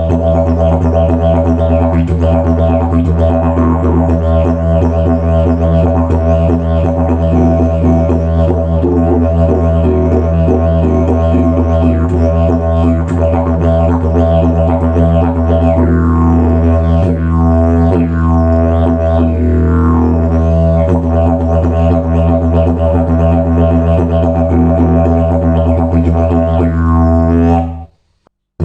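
Kosmika 'Bauxite' slide didgeridoo played as one continuous low drone. Its upper overtones sweep up and down through the middle of the take as the player shapes the sound with the mouth. The drone cuts off suddenly about a second before the end.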